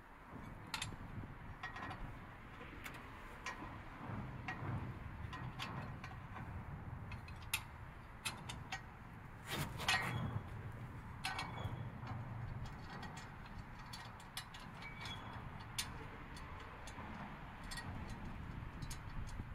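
Scattered light clicks and ticks at uneven spacing from hand tools and hardware being handled while fitting the skid plate's screws and clamps, a few louder ones close together about halfway through. A low steady outdoor rumble runs underneath.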